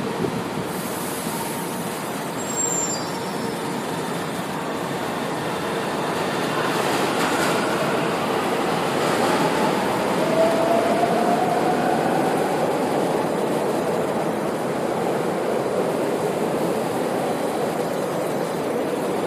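São Paulo Metro Line 1 train moving through the underground station, a steady rumble of wheels on rail, with a faint rising motor whine about ten seconds in.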